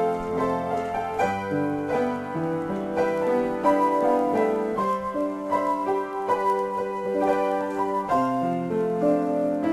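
Solo piano improvisation: quick runs of notes over sustained chords, the harmony shifting about every three to four seconds.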